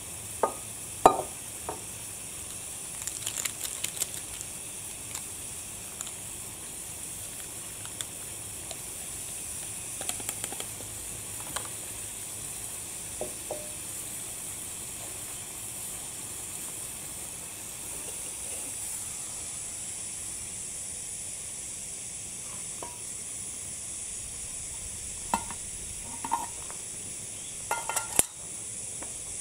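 Water boiling in a metal mess tin on a gas cartridge stove, a steady hiss throughout. Scattered sharp clinks of metal cookware and a mug being handled, with a cluster near the end as the pot comes off the stove.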